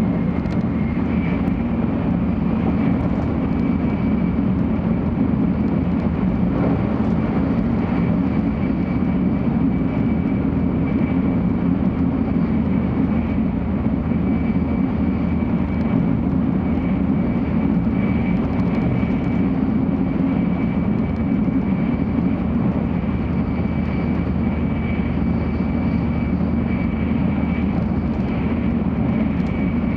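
Steady running noise inside a 700 series Shinkansen car at speed: a dense low rumble of wheels and air with a faint, steady high whine above it.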